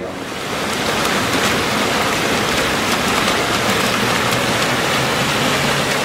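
Fountain jets splashing into a stone basin: a steady rush of falling water that swells in over the first second.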